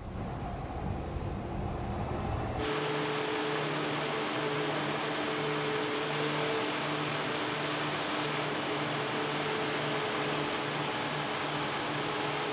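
Low wind rumble for about the first three seconds, then the steady running of a multi-axle heavy-haul transporter's engine, a loud hiss with a steady whine and a low, gently pulsing hum.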